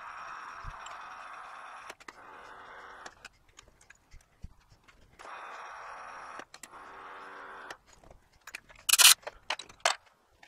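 Metal lathe running with its spindle turning while a part is drilled from the tailstock: a steady whir that stops about three seconds in, starts again about five seconds in and stops again about two seconds later. Near the end come a few sharp metallic clinks and knocks.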